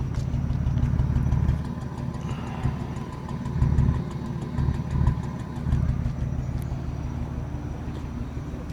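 A BMW 328i six-cylinder engine idling unevenly, its level rising and falling in irregular surges. The owner takes it to be misfiring and running on only five cylinders.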